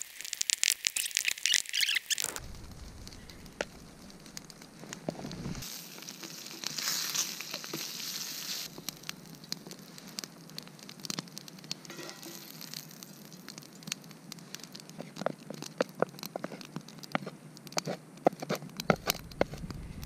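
Open wood fire crackling and popping, with bacon frying in a pan over it. A louder burst of crackly noise fills the first two seconds.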